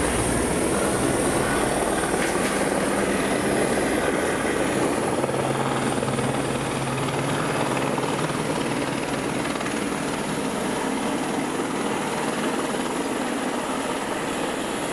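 Helicopter coming in to land. Its rotor and engine run steadily, with a steady high whine over them, and the sound eases slowly as it descends.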